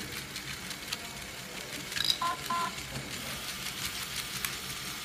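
Electronic beeps from a LEGO Mindstorms EV3 brick over a steady low hum: one short high beep about two seconds in, then two quick lower beeps.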